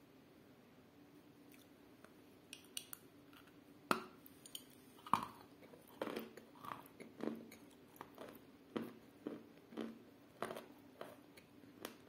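Sawn chalk coated in clay paste being bitten and chewed. There are a few sharp cracks as the teeth go in, the loudest about four and five seconds in, then steady crunching chews about twice a second. The chewing grates and squeaks, which the eater puts down to grit like stones in the chalk.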